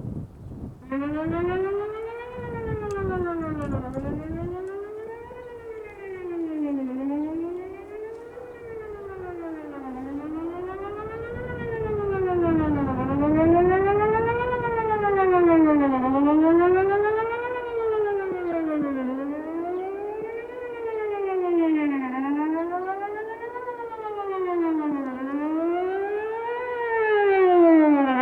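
Whelen 4008 electronic outdoor warning siren sounding a wail test tone. The tone starts about a second in and rises and falls in pitch about every two seconds, its volume swelling and fading slowly.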